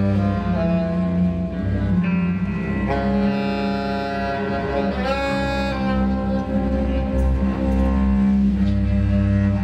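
Experimental ensemble music with bowed strings such as cello: a steady low drone under several long held notes, some of them sliding in pitch around the middle.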